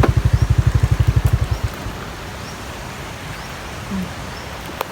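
A small motorcycle engine idling with an even low beat, about a dozen pulses a second, cuts off a little under two seconds in, leaving the steady rush of fast-flowing floodwater.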